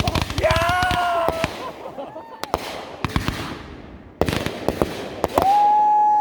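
Consumer fireworks going off: a short whistle about half a second in, several sharp bangs spread through the middle, then a long steady whistle starting near the end.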